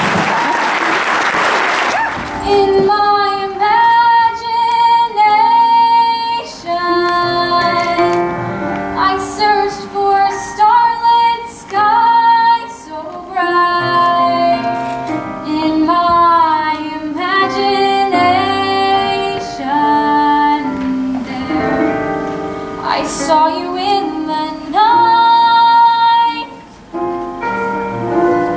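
Applause fading out about two seconds in, then a girl singing a solo song with instrumental accompaniment.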